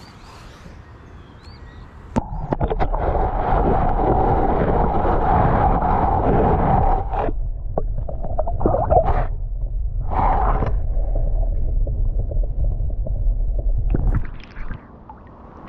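Muffled underwater rumbling and gurgling from a camera microphone dipped into pond water, with sloshes and knocks as a hand holds a largemouth bass under the surface for release. The noise starts suddenly about two seconds in and drops away near the end.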